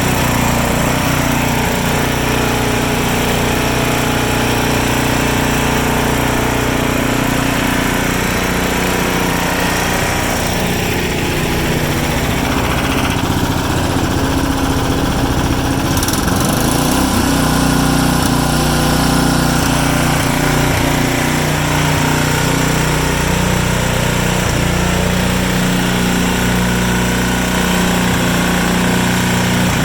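Single-cylinder 420cc engine of an Ariens Professional snowblower running steadily at speed, with a slight change in pitch about seventeen seconds in.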